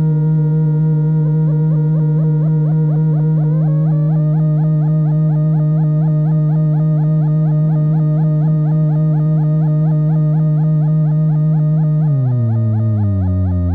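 Elletrorama-built MFOS Weird Sound Generator, a dual-oscillator analog drone synth, holding a steady low drone with a fast, repeating warble in its upper tones. About twelve seconds in, the pitch drops in steps to a deeper drone.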